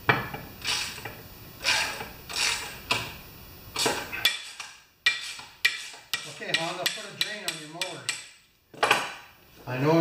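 Metal knocking and clinking as the blade adapter is worked off an upturned mower's crankshaft: about six separate knocks over the first four seconds, then a run of quick light metallic clicks, and one more knock near the end.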